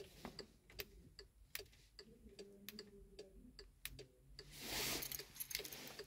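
Volkswagen Tiguan's hazard warning lights ticking faintly and steadily, about one tick-tock every three-quarters of a second. A brief rustle of handling comes about four and a half seconds in.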